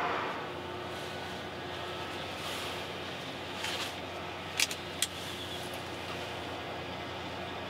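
Steady hum of industrial site machinery, with a louder passing noise fading out at the start. Two sharp knocks sound about four and a half and five seconds in.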